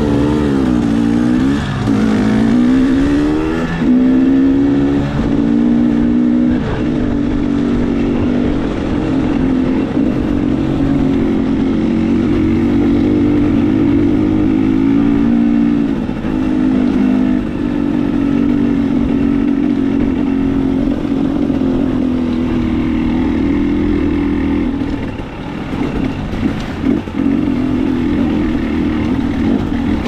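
KTM 300 XC-W two-stroke dirt bike engine under way at trail speed, its revs rising and falling with the throttle in the first few seconds and then holding fairly steady, easing off briefly near the end.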